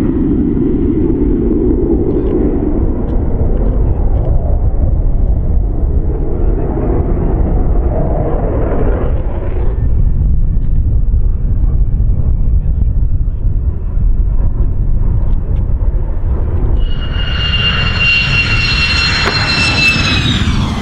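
F-15E Strike Eagle's twin turbofan engines: a loud, steady jet rumble throughout, joined about three-quarters of the way through by a high whine that slowly falls in pitch as the jet comes in to land.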